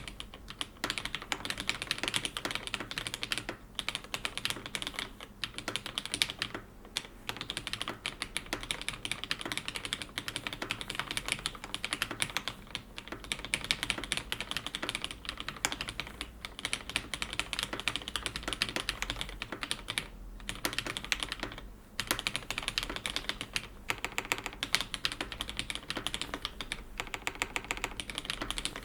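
Steady, fast typing on a Cherry G80-1800 keyboard with lubed, retooled Cherry MX Black linear switches and GMK keycaps: a rapid run of key clacks with a few brief pauses.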